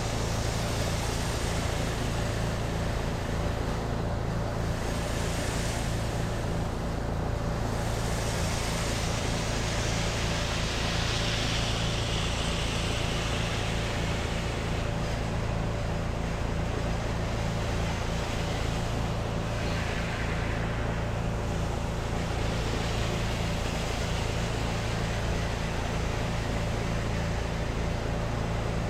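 Pressure washer's engine and pump running steadily while the wand sprays downstreamed soap through a V-Jet soap tip; the hiss of the spray swells and fades several times over the steady engine hum.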